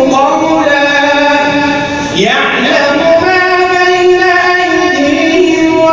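Solo voice chanting Quranic recitation in melodic tajweed style, holding long steady notes. About two seconds in, the voice breaks briefly and sweeps up in pitch into a new phrase.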